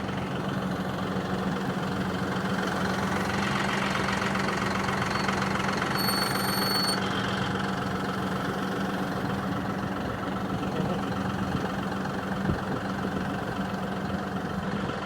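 Tractor engine running steadily with a low, even hum. A brief high thin tone sounds about six seconds in.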